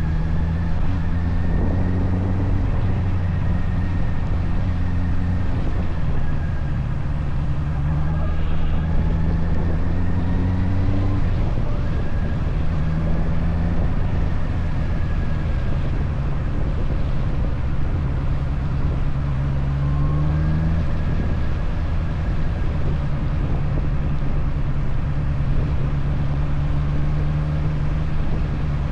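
Motorcycle engine running while riding, its pitch climbing twice as it accelerates and dropping back sharply at each gear change, over a steady rush of wind noise.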